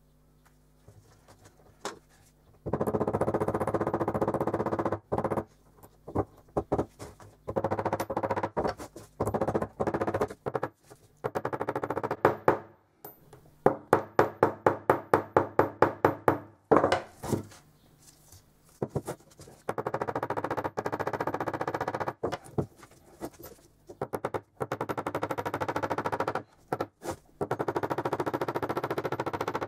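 Small steel-headed hammer tapping rapidly on the end of a steel bolt held in a metal bracket, in long runs of quick metallic strikes with short pauses between them. Around the middle the taps slow to an even four or five a second.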